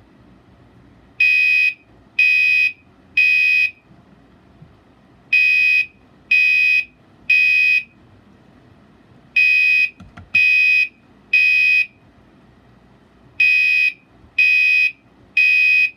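Gentex Commander 3 fire alarm horn sounding the temporal code 3 evacuation pattern at its low-volume setting: three half-second tones, a pause, and the group of three again, four times over. A faint knock about ten seconds in.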